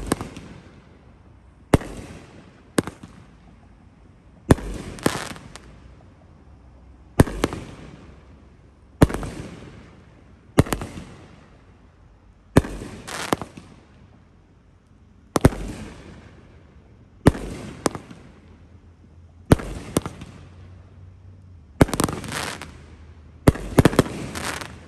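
A consumer fireworks cake firing shot after shot, about a dozen in all, every couple of seconds and sometimes two in quick succession. Each is a sharp bang followed by a fading crackle as the aerial burst breaks.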